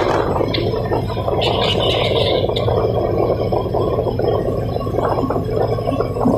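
Tugboat diesel engines running steadily under load, a low hum with a rough, gurgling noise over it.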